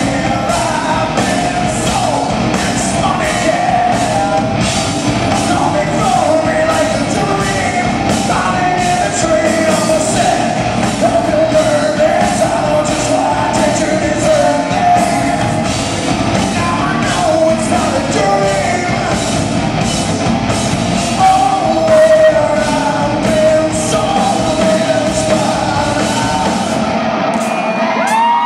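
Live rock band playing loud in a large hall: electric guitars, bass and a drum kit, with a man singing lead over a steady beat of about two drum hits a second. Near the end the drums and bass drop out, leaving a single held note.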